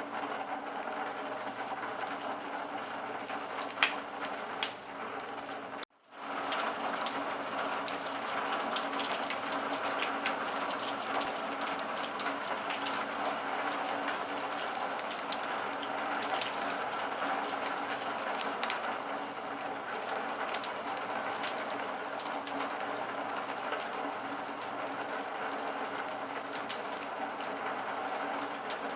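Steady rain falling, with scattered sharp drop ticks over an even hiss. About six seconds in, the sound cuts out for a moment and fades back in.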